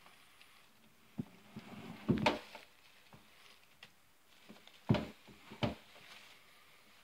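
Cat pouncing and scrambling on a hardwood floor: a few scattered soft thumps and knocks, the loudest about two seconds and about five seconds in.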